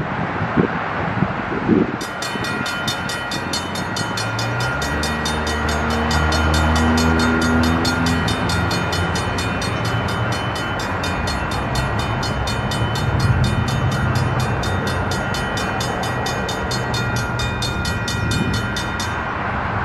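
Railroad grade-crossing bell ringing steadily, starting about two seconds in and stopping shortly before the end, as a freight train approaches. A locomotive horn sounds a few seconds in, over the rumble of the train.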